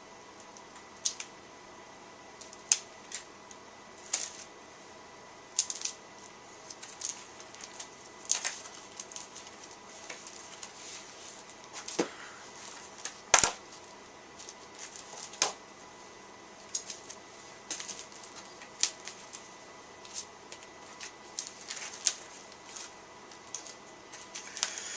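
Irregular crinkling, rustling and clicking of packaging and plastic comic-book bags being handled and opened by hand, with one sharper snap about halfway through.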